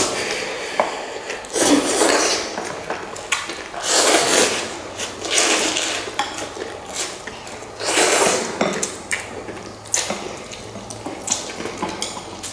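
Instant noodles being slurped from bowls in quick repeated slurps, about one every one and a half to two seconds, with occasional light clicks of chopsticks or spoons against the bowls.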